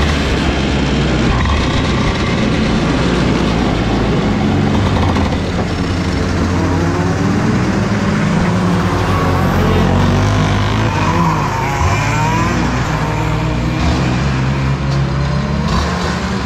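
Racing go-kart's two-stroke engine running close to the microphone, its pitch rising and falling.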